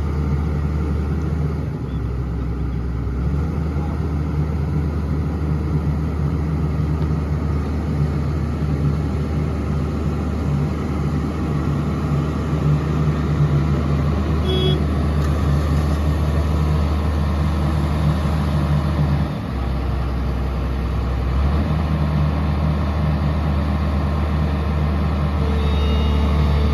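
Hydraulic excavator's diesel engine running steadily under work. Its low drone shifts briefly about two seconds in and again about two-thirds of the way through.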